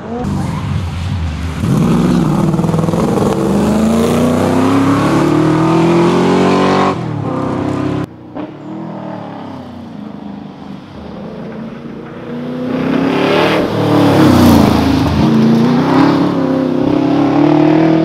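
Holden VH Commodore SS V8 rally car under hard acceleration, its engine note climbing steadily in pitch. The sound cuts off abruptly about eight seconds in. From about twelve seconds the engine builds again, with a short drop in pitch at a gear change, then climbs once more as it comes closer.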